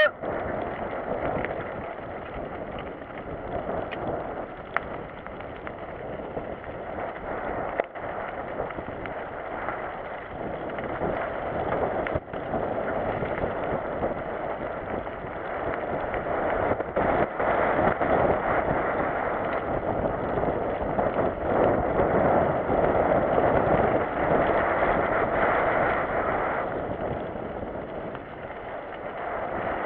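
Mountain bike ridden along a wet gravel trail: a steady rumble and rattle of tyres and bike, with wind on the microphone, louder in the second half.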